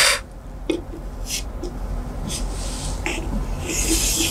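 Chalk scraping on a chalkboard as straight lines are drawn along a wooden ruler: a few short strokes about a second apart, then a longer stroke near the end.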